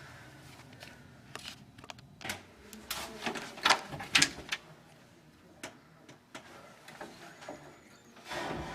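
Light, irregular clicks and knocks from a commercial door and its hardware being handled, with a short scuffing noise near the end.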